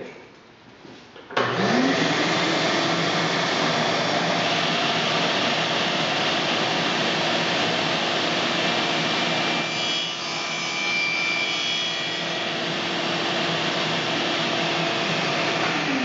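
A table saw switches on about a second and a half in, its motor whine rising to speed and then running steadily under a loud rushing noise. Around ten seconds in the blade crosscuts a thin wooden strip, with a brief higher squeal. The whine begins to wind down at the very end.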